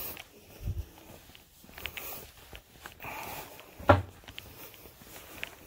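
Handling noise while browsing a clothing rack: clothes rustling against the phone, scattered clicks of hangers, and footsteps, with one sharp knock about four seconds in.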